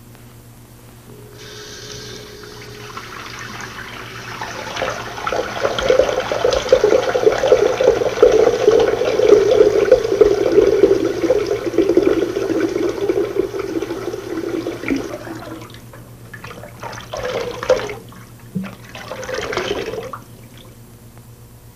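Water running, building up over a few seconds, running strongly and then stopping about fifteen seconds in, with two shorter gushes near the end.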